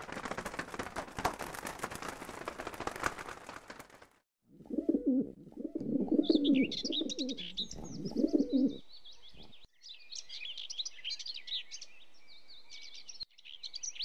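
Bird sound effects: a dense flutter of flapping wings for about four seconds, then pigeons cooing in repeated low calls. High chirps from small birds come in over the cooing and carry on after it stops.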